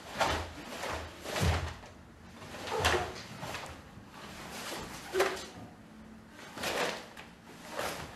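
Karate gi fabric snapping and bare feet sliding and stamping on a wooden floor during a kata: about six sharp swishes a second or so apart, a few with a low thud.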